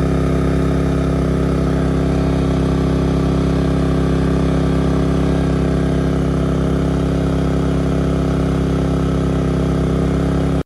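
WEN 3600-watt portable generator engine running at a steady, even speed under about half load while it powers an air conditioner.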